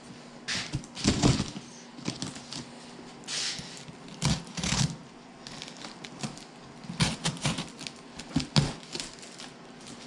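Cardboard shipping box being cut open with a knife and handled: irregular short bursts of cutting, scraping and rustling cardboard.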